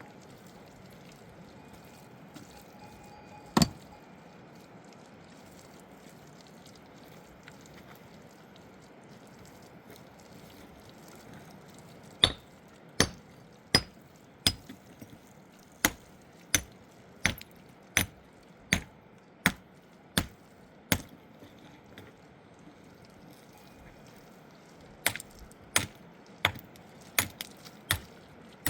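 A hand tool striking hard material: one knock, then a run of about a dozen sharp strikes at a steady pace of a little more than one a second, a pause, and five or six more near the end.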